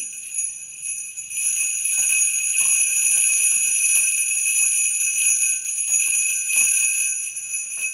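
Sleigh bells shaken by hand, a continuous bright jingling that swells about a second and a half in and eases near the end.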